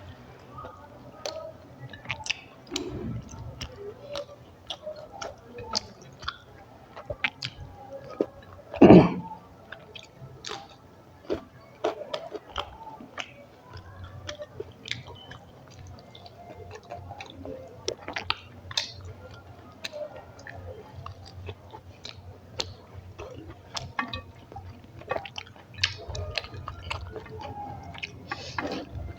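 Close-miked chewing and wet mouth sounds of a person eating rice and curry: irregular smacks and clicks, with one much louder sudden sound about nine seconds in.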